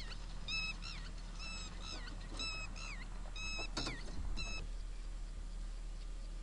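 A series of about five short, high-pitched animal calls, roughly one a second, each ending in a falling note; they stop a little past halfway.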